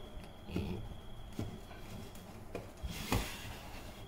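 Hard plastic rubbing and knocking as a Dumborc FPV display screen is slid onto its mounting bracket on a pistol-grip RC transmitter, with the loudest knock about three seconds in.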